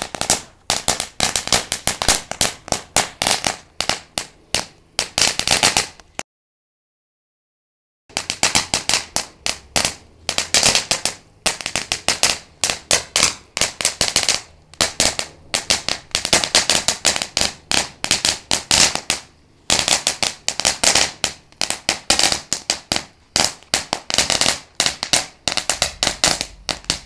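Thumbs of Fury crackling fountain firework burning: a dense, rapid, continuous string of sharp crackling pops. The sound cuts out completely for about two seconds just after six seconds in, then the crackling resumes.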